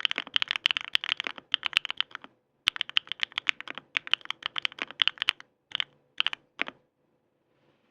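Sangeo 65 mechanical keyboard with Bsun Raw switches being typed on in quick runs of keystrokes. The typing breaks off briefly a little past two seconds in, resumes, slows to three separate key presses around the sixth second, then stops.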